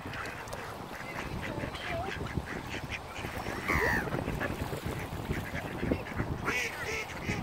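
Mallard ducks quacking in short calls throughout, with a louder call about four seconds in and another cluster near the end.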